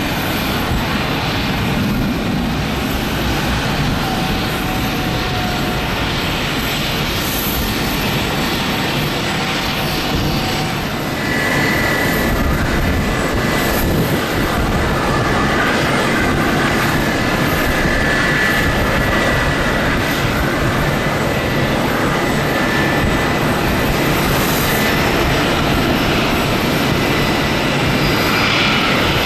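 Airbus A320's twin CFM56 turbofan engines at takeoff power, a loud steady rushing noise. About a third of the way through it grows slightly louder and a high steady whine joins it.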